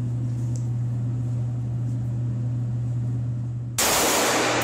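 A steady low hum, then about three-quarters of the way through a single pistol shot on an indoor range, heard as a sudden loud burst of noise that briefly swamps the hum.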